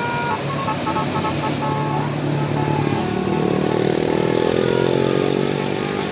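A bus's telolet horn playing a quick run of short melodic notes, then the bus engine revving up, rising in pitch, from about three seconds in.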